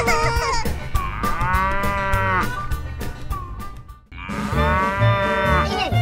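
A cow mooing twice: two long calls, each rising and then falling in pitch, about three seconds apart, over background music with a steady low beat.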